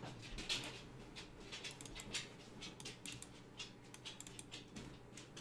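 Faint, irregular clicks of a computer mouse and keyboard in use, over a low steady hum.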